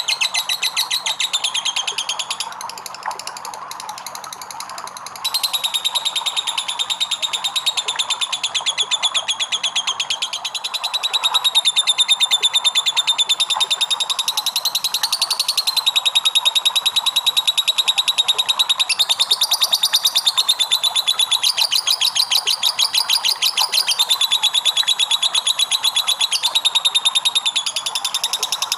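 Lovebird's long 'ngekek': a high-pitched, very fast rattling trill that runs on without a break. It goes softer for a few seconds near the start, then comes back louder.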